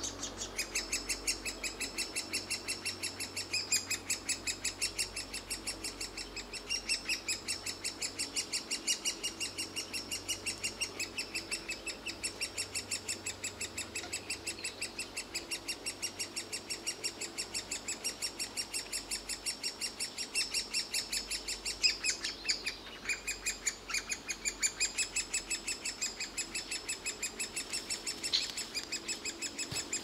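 Great spotted woodpecker nestlings begging from inside the nest hole: a rapid, steady string of short high calls, about five a second.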